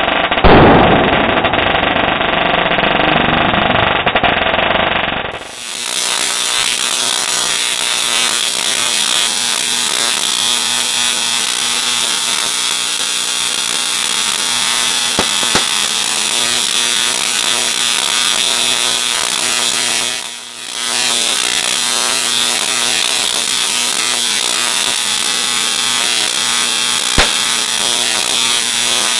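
Tesla coil discharge arcing to a pole, a loud, steady, crackling electrical buzz that drops out briefly twice. One sharp crack near the end.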